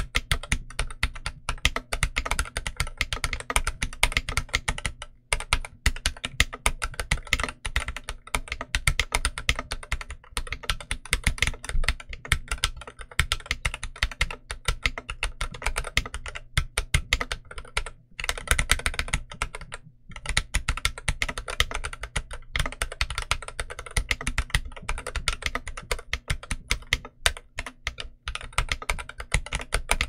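Continuous typing on a stock Inland MK47 40% mechanical keyboard with Huano Red linear switches and OEM-profile keycaps that the owner believes are ABS: a dense run of keystroke clacks, with brief lulls about five, eighteen and twenty seconds in.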